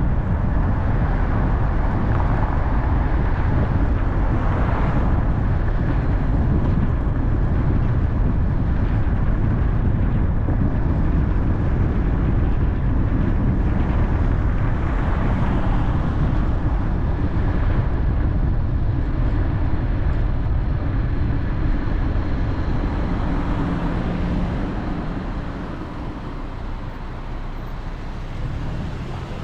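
A car driving: steady road and tyre noise with a low engine hum, getting quieter near the end.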